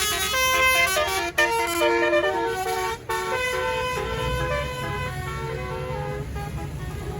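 Tour bus's Basuri telolet horn playing a quick tune of stepping notes; the notes grow fainter after about four seconds as the bus's low engine rumble comes up.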